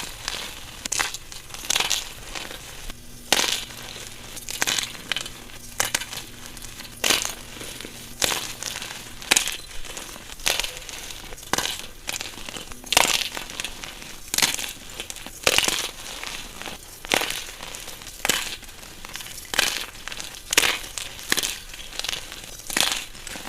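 Pieces of glitter-coated chalk being crushed, giving crisp crunches and crumbling about once a second at uneven spacing.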